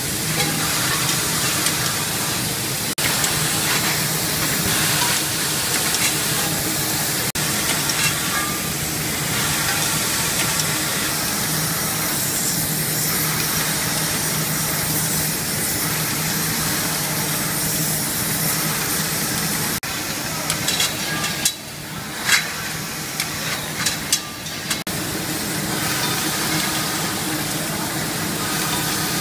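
Gas burner flames on a tubular-glass vial-forming machine hissing steadily over a low machine hum. About two-thirds of the way through, the hiss eases for a few seconds and several sharp clicks are heard.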